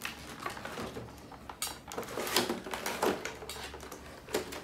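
Clear plastic packaging bag crinkling and rustling as a plastic toy is worked out of it, with irregular crackles and a few sharper taps.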